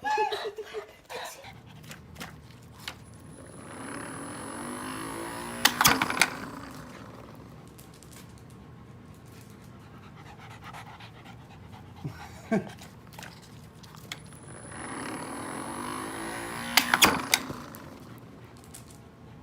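A dog panting, with a short whine at the start. Two louder noisy swells each end in a few sharp clicks, about six seconds in and again near seventeen seconds.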